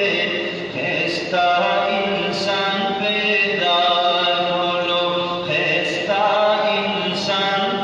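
A man singing a Pashto naat, a devotional poem in praise of the Prophet Muhammad, without instruments. He sings in long held notes that step up and down in pitch, with brief hissing consonants between phrases.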